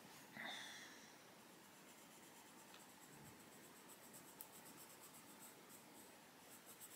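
Faint, soft scratching of a coloured pencil shading on paper in small strokes, with a brief faint high sound about half a second in.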